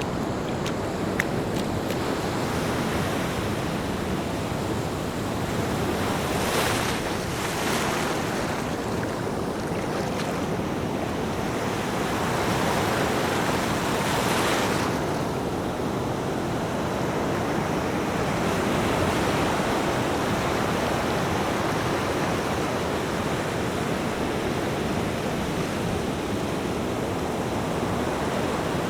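Ocean surf washing steadily onto the shore, with louder surges of hissing wash about seven seconds in and again around fourteen seconds.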